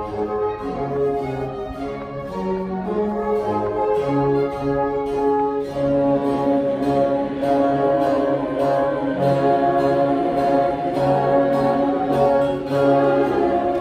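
Baroque chamber orchestra playing an instrumental passage: held notes over a steady bass line, with no voices.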